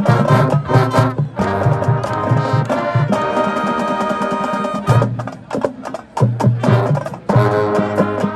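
High school marching band playing: brass chords over drumline percussion. A chord is held steady for about two seconds near the middle, then the band drops briefly quieter before the full band comes back in.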